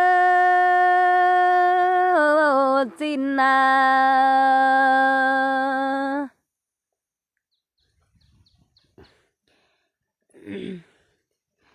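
A Dao folk singer's voice holding a long, steady note in the hát lượn style. About two seconds in it drops in pitch with a wavering turn, then holds a lower note that stops abruptly a little past the middle. After that it is near silence, with a short faint sound near the end.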